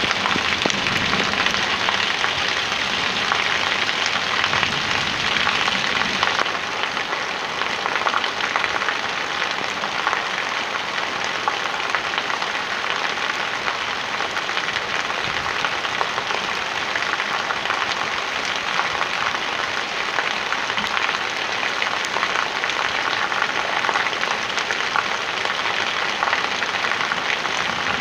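A stream of rainwater pouring from above and splashing steadily onto stone paving, amid falling rain.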